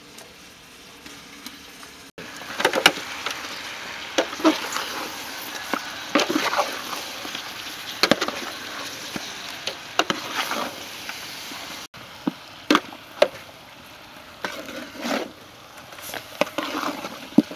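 Raw pork leg pieces being stirred and turned with marinade in a stainless steel pot, with irregular knocks and scrapes against the pot every second or so.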